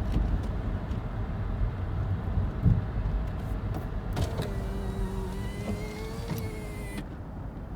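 Small front-wheel-drive car driving through a few inches of snow, a low rumble heard from inside the car. About four seconds in a steady whine starts and runs for about three seconds before cutting off abruptly.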